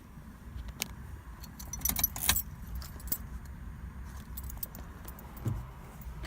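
A bunch of keys jangling and clinking in short scattered bursts, loudest about two seconds in, over a low steady background hum.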